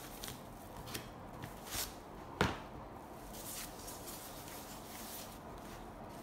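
Faint handling sounds of a product box and its packaging being opened: scattered rustles and light taps, with one sharper click about two and a half seconds in.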